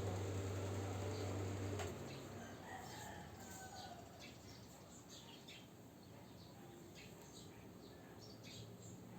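A steady low electric motor hum cuts off about two seconds in. Faint bird chirps follow, with a few gliding calls.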